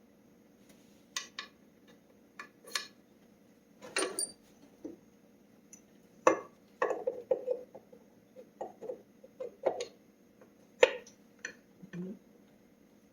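Irregular clicks and light metallic clinks of small steel engine parts and hand tools being handled during hand assembly of a small single-cylinder engine.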